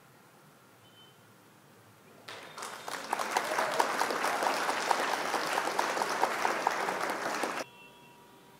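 Near silence, then a stock applause sound effect for the answer reveal. It rises in over about a second, runs with a row of short, evenly spaced pings through it, and cuts off suddenly about a second before the end.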